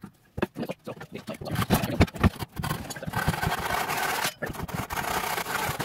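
Ratchet wrench clicking as bolts are tightened through the wooden 2x4 frame of a sawbuck, with knocks of the timbers at first. The clicks come singly early on, then run fast and continuous from about halfway.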